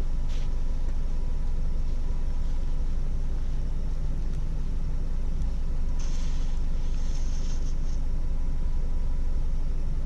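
Car engine idling, heard from inside the parked car as a steady low rumble with a faint steady hum. A soft hiss joins it for about two seconds, about six seconds in.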